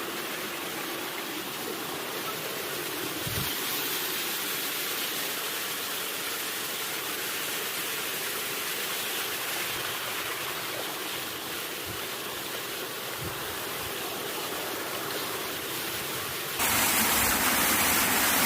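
Rushing water of a waterfall and stream: a steady, even noise. Near the end it abruptly becomes louder and brighter.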